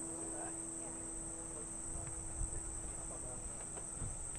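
Steady high-pitched drone of insects in the surrounding trees, with faint distant voices now and then.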